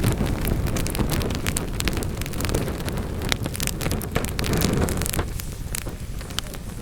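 Wood fire burning in a fireplace: a low rumble of flames with many sharp crackles and pops of burning wood. The low rumble eases off near the end while the crackling goes on.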